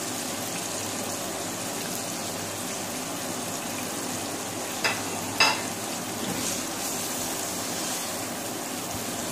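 Chicken pieces sizzling steadily in hot oil in a wok, with two sharp knocks about halfway through; near the end a spatula stirs the pieces around the pan.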